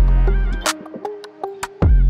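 Background electronic music with a beat: a deep bass hit at the start and again near the end, with clicking percussion and short synth notes between.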